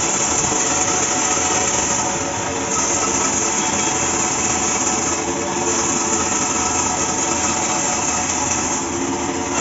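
Large bandsaw running and cutting through a tall block of wood: a steady machine hum under the high hiss of the blade in the cut, which eases briefly about every three seconds.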